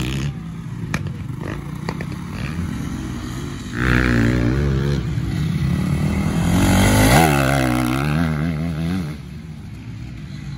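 Honda motocross bike engine revving up and down as it is ridden on a dirt track, the pitch climbing and falling in two loud passes. It drops off near the end.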